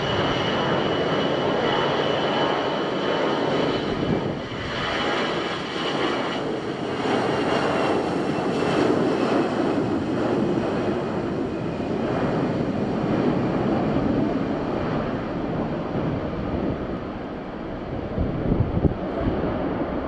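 Airbus A320-214's CFM56 jet engines at takeoff thrust through the takeoff roll and lift-off: a steady loud rumble, with a high fan whine that fades after the first few seconds. A few low thumps near the end.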